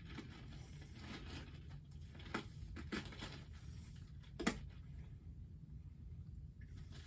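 Quiet room tone with a low steady hum, broken by a few light clicks and taps, the sharpest about four and a half seconds in.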